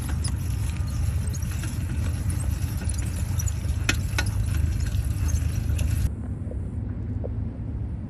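Bicycle with knobby tyres ridden over a rough, gravelly paved path: a steady rumble of tyre and wind noise with a few sharp rattles. It cuts off abruptly about six seconds in, leaving a quieter low rumble.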